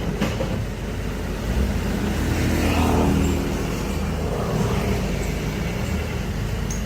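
Heavy construction machine's diesel engine running steadily, swelling briefly in load about three seconds in.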